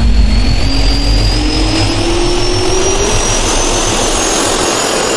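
Jet turbine spool-up sound effect: a loud, dense roar with a whine that rises steadily in pitch.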